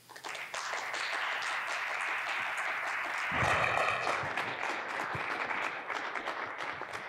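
A small audience applauding with a steady spell of clapping that grows a little fuller about halfway through.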